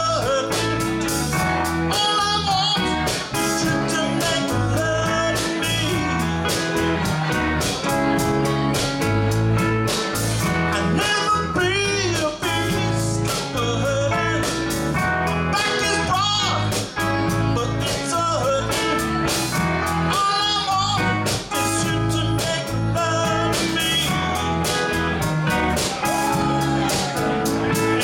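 Live band music: electric guitar, bass guitar and drums playing together with a steady beat.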